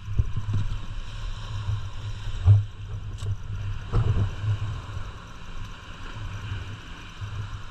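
Wind rumbling on the microphone over the wash of water around a small wooden fishing boat at sea, with a few dull knocks, the loudest about two and a half seconds in and another about four seconds in.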